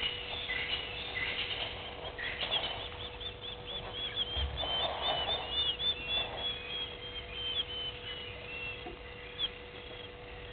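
Wild birds calling in the bush: a rapid run of short, high chirping notes, several a second, for a few seconds, then scattered single notes.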